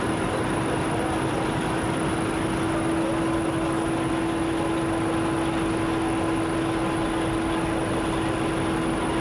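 A steady rushing noise with an unbroken low droning tone under it, level throughout.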